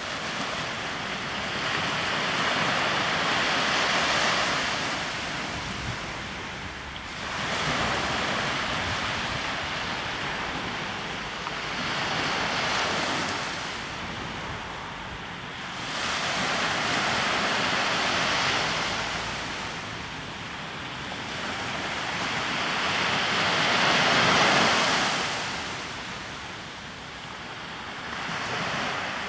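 Mediterranean sea waves breaking on the shore, one about every four to six seconds, each rising suddenly into a loud rush of surf and then washing back and fading.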